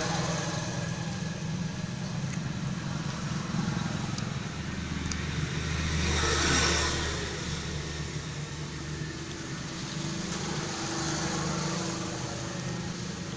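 Road traffic: a vehicle passes, swelling and fading about six seconds in, over a steady low hum.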